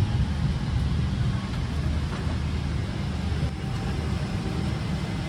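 Steady low rumble of a Boeing 777-300ER cabin's air conditioning and ventilation before engine start.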